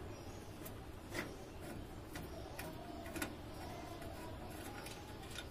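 Screwdriver and fingers working the rear screw of a desktop PC case's side panel loose, with scattered small metallic clicks and ticks.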